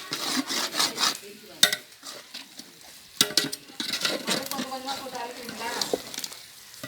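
Food frying and sizzling in a pot while it is stirred, the utensil scraping round the pot in repeated strokes, with a few sharp knocks against the pot.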